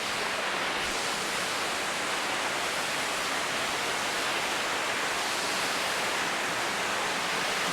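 Waterfall pouring, a steady rushing of falling water without a break.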